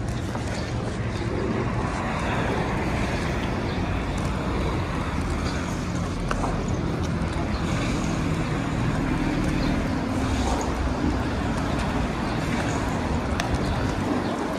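City street traffic: a steady wash of passing cars and road noise, with a vehicle engine's hum standing out for a few seconds around the middle.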